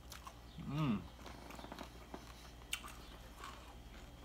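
A man chewing a tostada with soft, scattered mouth clicks and smacks, and a short closed-mouth hum of enjoyment, 'mmm', rising then falling in pitch about a second in.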